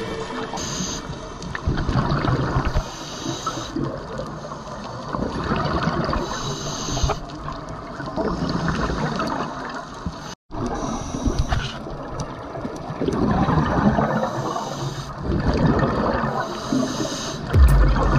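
Scuba regulator breathing underwater: bursts of exhaled bubbles every few seconds, with a hiss between them. The sound cuts out completely for a moment about ten seconds in.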